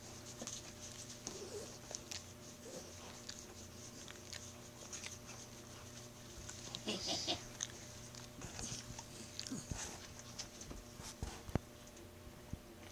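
Kitten playing on carpet with a plastic bag and a small toy: faint, scattered rustles and light taps, with a louder burst of rustling about seven seconds in.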